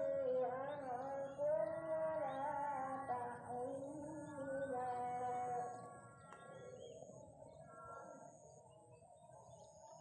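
A voice singing a slow, wavering melody, plainer for the first six seconds and fainter after. A faint high chirp repeats about once a second.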